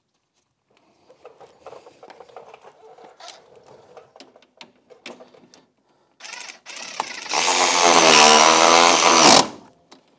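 Light clicks and rattles of bolt and hardware handling. Then a cordless impact wrench blips once and runs for about two seconds, its pitch wavering under load, tightening the lower shock-mount bolt on the ATV, and cuts off sharply.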